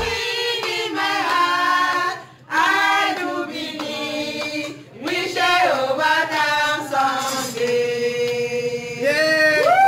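A group of women singing together in chorus, holding long notes with breaks between phrases.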